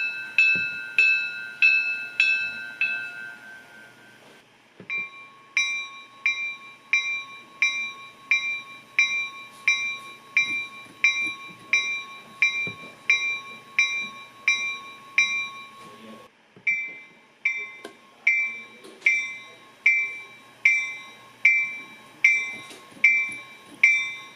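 Diesel locomotive bell sounds from a TCS WOWSound version 4 DCC sound decoder, each ringing at about one and a half strikes a second. One bell fades out in the first few seconds. A second bell starts about five seconds in, and a different bell takes over about sixteen seconds in.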